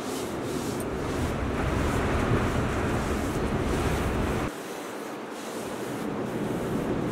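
Hands spreading and smoothing a damp salt crust over whole pike on a baking tray, a steady rough rubbing and scraping of coarse wet salt.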